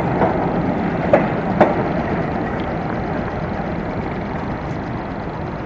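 W-class electric tram running away along the track: its wheels click twice over rail joints between one and two seconds in, and the steady running noise slowly fades.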